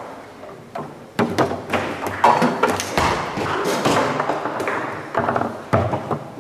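Table football being played on a Leonhart table: the ball cracking off the plastic men and the table walls, and rods knocking against their stops, in a string of sharp, irregular knocks.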